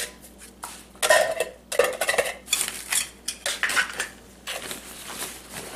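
Toaks 500 ml titanium cook kit clinking and rattling in several short bursts as it is handled and stuffed into its sack.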